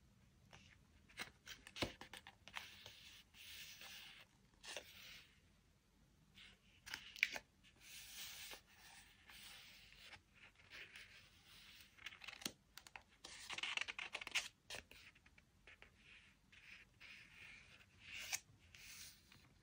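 Faint paper and stationery handling: on-and-off scratchy rustling and sliding of paper, with a few sharp clicks, the loudest about seven seconds in.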